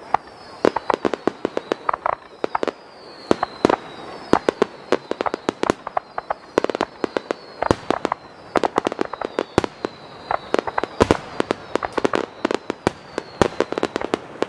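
Aerial fireworks bursting in rapid succession: many sharp bangs and crackles, overlapping one another. A faint high whistle falls in pitch about once a second throughout.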